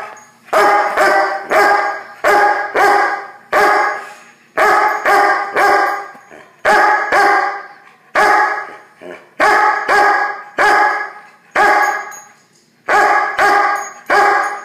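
A large dog barking loudly and over and over, about twenty barks in quick runs of two or three with short breaks between.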